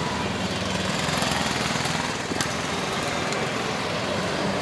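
Road traffic: vehicle engines running steadily with road noise, and one short click a little past halfway.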